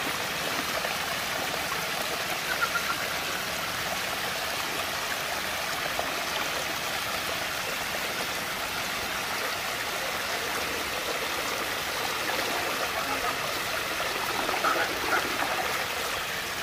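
Water swirling and rushing steadily into a whirlpool vortex, with brief louder moments about three seconds in and near the end.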